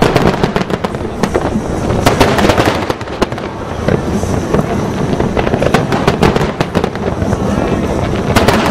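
Aerial fireworks display: a dense run of shell bursts and crackling over a continuous low rumble. There is a cluster of sharp bangs about two seconds in and another near the end.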